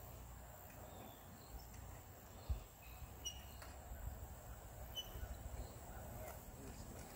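Faint outdoor background with a low rumble, a few short bird chirps, and one dull thump about two and a half seconds in.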